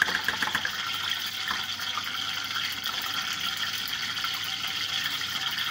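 A spoon stirring thick gram-flour batter in a plate: wet stirring with a few clinks in the first half-second, over a steady hiss.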